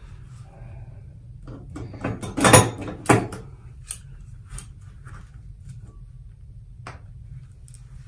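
Metal pliers being picked up off a bathroom countertop and handled: a knock and clatter about two and a half seconds in, then a few lighter clicks.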